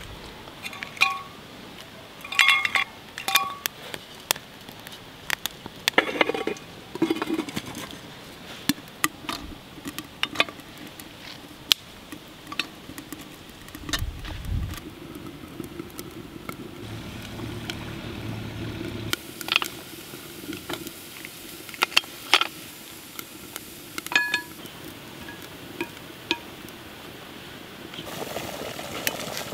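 Metal clinks and knocks from a stainless-steel Kelly kettle and its fire base being handled and set together, with a small frying pan going on top; a few knocks ring briefly.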